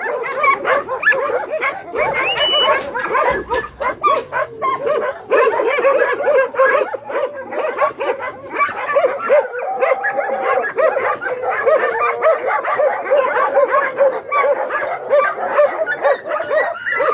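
A large pack of shelter dogs barking all at once, a dense, unbroken chorus of many overlapping barks.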